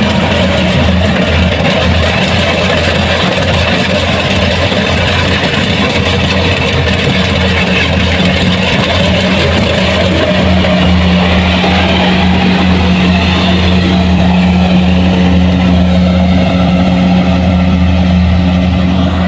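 Kubota combine harvester's diesel engine running steadily, a loud even drone whose note grows a little stronger about halfway through.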